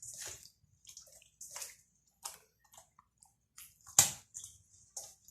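Wet squelching and smacking of a raw marinated whole chicken being handled, in short irregular bursts, with one sharp click about four seconds in.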